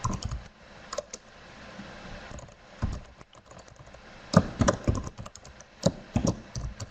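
Typing on a computer keyboard: irregular key clicks, a few scattered at first, then bunched into quick runs in the second half.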